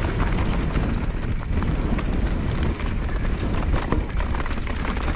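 Mountain bike descending a rough, rocky dirt trail at speed: tyres rumbling over dirt and loose stones, with frequent sharp clicks and rattles from the bike, and wind on the camera microphone.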